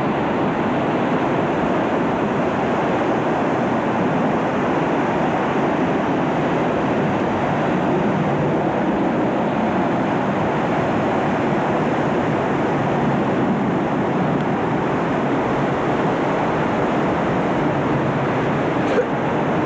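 Steady, unbroken roar of ocean surf breaking on a sandy beach, with a single brief click near the end.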